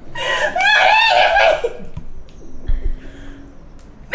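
A young woman laughing loudly for about a second and a half, then quieter, softer sounds.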